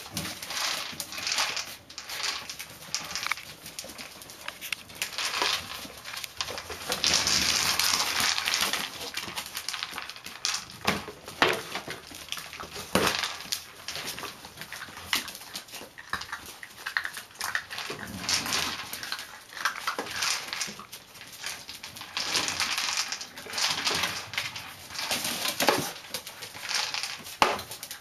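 Basenji puppies playing with a hard plastic wobble egg food toy on a vinyl floor. There are repeated knocks and scrapes as the toy is pushed and tips, the puppies' paws skitter, and the puppies whimper now and then.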